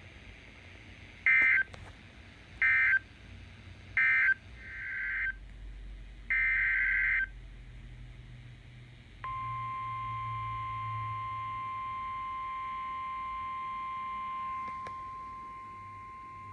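Emergency Alert System data tones: three short buzzing digital bursts about a second and a half apart, marking the end of a warning message, then a longer burst. About nine seconds in, a steady single-pitched alert tone of about 1 kHz begins and holds, typical of the NOAA Weather Radio 1050 Hz warning alarm that comes before a new warning.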